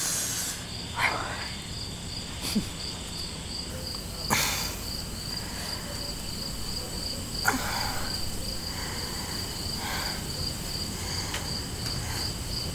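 Crickets chirping in a steady pulsing rhythm, about four chirps a second, with a few short, scattered knocks and rustles.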